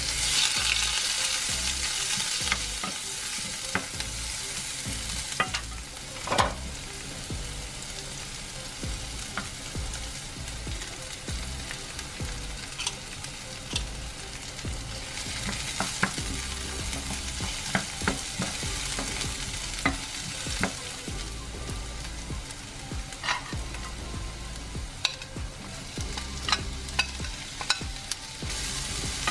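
Sliced onions sizzling in hot oil in a nonstick frying pan, a steady hiss, with scattered knocks and scrapes of a wooden spoon stirring them, the loudest knock about six seconds in.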